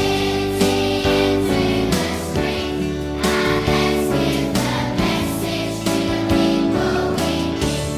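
A choir singing a hymn with musical accompaniment, in long held chords that change every second or so.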